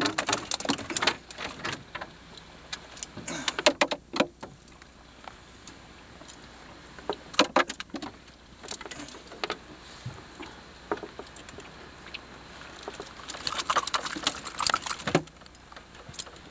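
Irregular bursts of knocks and rattles from a freshly caught fish in a plastic cooler as its hook is worked free with pliers, with quieter stretches in between.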